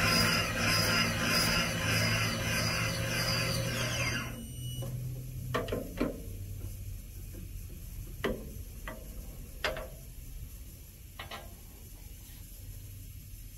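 Valve seat cutter turning in a cast-iron John Deere 6068 cylinder head, its three-angle blade scraping the seat with a rhythmic metallic chatter over a steady motor hum, stopping about four seconds in. A few sharp clicks from handling follow.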